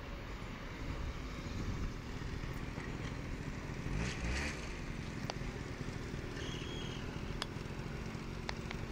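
Honda Lead scooter's small engine running close by, its pitch rising and falling as it comes past about four seconds in, over a steady rough rumble, with a few sharp clicks.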